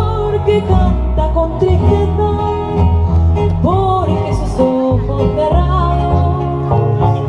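Live acoustic music: a guitar and a double bass accompany women singing a slow melody.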